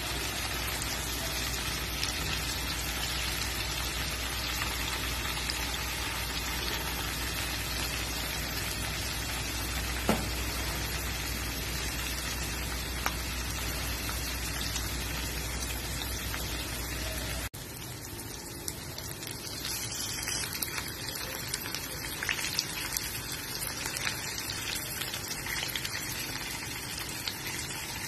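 Tofu cubes sizzling in hot oil in a nonstick frying pan: a steady hiss with a few sharp pops. About two-thirds of the way through the sound cuts abruptly and comes back as a more crackly sizzle with frequent small pops.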